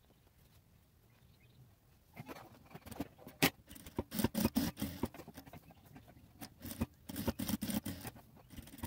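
Sewing machine stitching a seam in short runs with pauses between them, starting about two seconds in, with scattered clicks.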